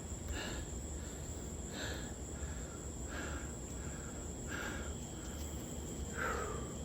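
Crickets keep up a steady high trill. Softer sounds come about every second and a half.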